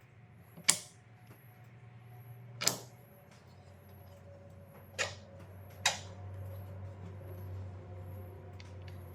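Four sharp knocks and clicks, spaced a second or two apart, the first the loudest, over a low steady hum: hard parts being handled and set down on a workbench.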